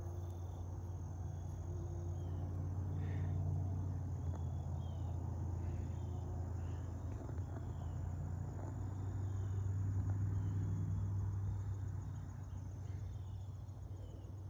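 Crickets or other insects calling at dusk: a steady high trill with short chirps repeating about once a second, over a steady low rumble.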